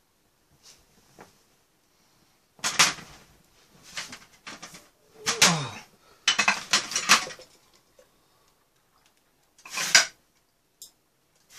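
Plates, bowls and utensils clattering and scraping on a metal serving tray as dishes are moved around. It comes in several short bursts, one with a falling scrape, and ends with a last sharp clatter near the end.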